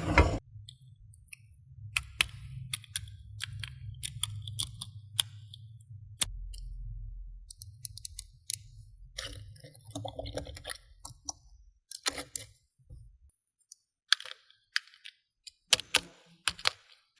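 Slime being squished and mixed by hand, giving scattered sticky clicks and little pops. A low handling rumble runs under them and stops about three-quarters of the way through.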